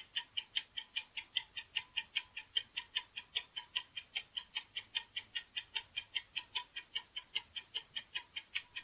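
Countdown timer sound effect: a clock ticking fast and evenly, about five ticks a second.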